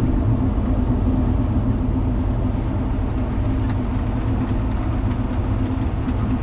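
John Deere 7600 tractor's six-cylinder diesel engine running at a steady speed, heard from inside the cab as the tractor drives slowly along.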